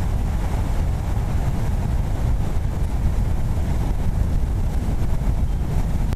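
Hurricane wind blowing hard and buffeting the microphone: a steady rushing noise over a heavy low rumble.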